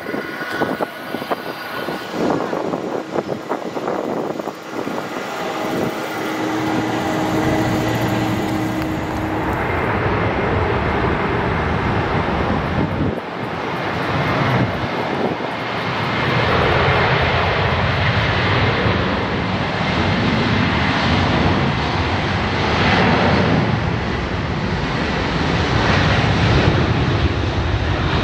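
Twin turbofan engines of an Airbus A330-300 airliner running as it taxis, then a steady jet engine noise that builds to takeoff power about halfway through and stays loud as the aircraft rolls down the runway.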